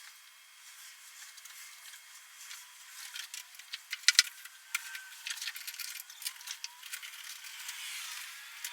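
Irregular clicks, taps and rattles of tonneau cover parts and mounting hardware being handled and fitted onto a pickup bed, with two sharp knocks about four seconds in.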